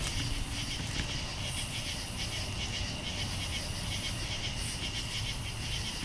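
Night insects such as crickets trilling steadily in a high, finely pulsing chorus, with a few brief higher chirps, over a low rumble.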